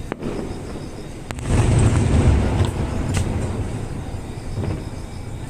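Aerial fireworks going off. A sharp crack comes a little over a second in, then a deep rumbling boom that rolls on for about a second and a half and fades. A couple of single sharp pops come before and after it.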